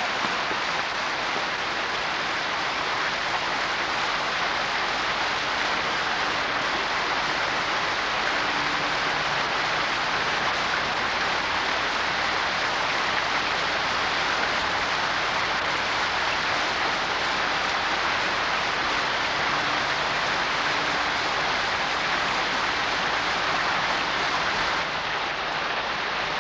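Ornamental fountain jets spraying and splashing into a pool: a steady rush of falling water.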